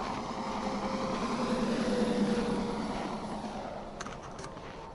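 Semi truck passing on the interstate highway: a swell of tyre and engine noise with a steady hum, building to its loudest about two seconds in and then fading away.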